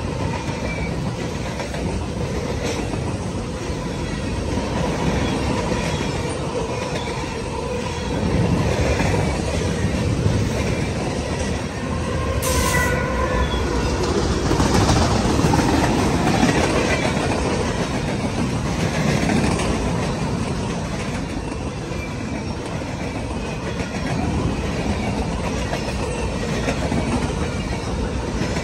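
CSX freight train passing close by: a steady rumble and clatter of wheels on the rails. It gets louder as a mid-train diesel locomotive goes past about halfway through, with a single sharp clank just before.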